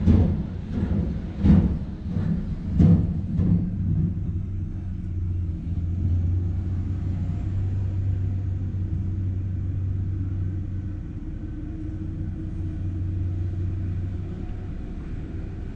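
Liebherr LB 30 drilling rig at work: a run of heavy, irregular knocks for the first few seconds, then the rig's power unit running with a steady low hum.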